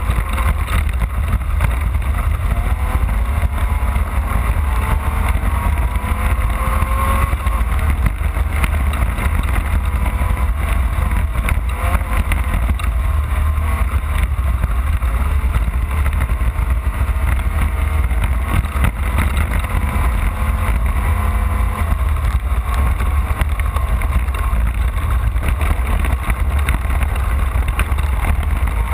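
Off-road race vehicle's engine running under way, its pitch wandering up and down over a heavy, constant low rumble.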